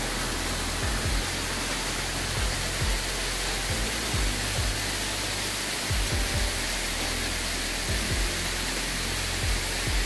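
Steady rush of a waterfall cascading over rock, with background music whose low bass notes thud at an uneven beat.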